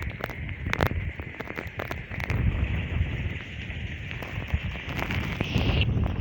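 Hailstorm: hailstones striking hard surfaces in many sharp, irregular clicks over a steady hiss of rain, with wind buffeting the microphone.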